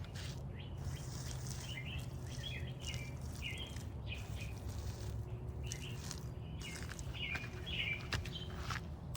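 A songbird singing two short runs of quick chirping notes, about two seconds in and again about seven seconds in, over a steady low rumble.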